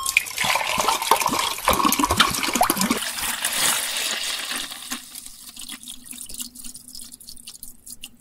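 Liquid poured from a plastic soda bottle into a clear plastic cup: a splashing stream, loudest for the first three seconds, then a softer trickle as the cup fills.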